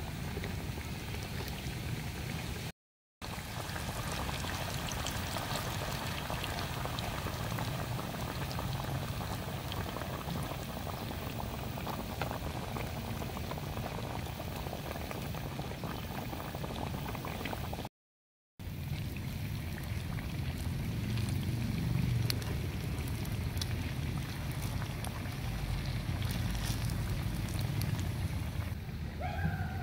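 Battered banana cakes deep-frying in hot oil: a steady sizzle and crackle of bubbling oil, broken off briefly twice.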